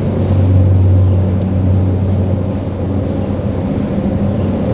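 A steady, low engine drone holding an even pitch, slightly louder about a second in.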